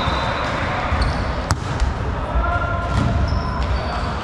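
Volleyball being hit: one sharp smack about a second and a half in and a softer hit near three seconds, with short squeaks of shoes on the court floor in between.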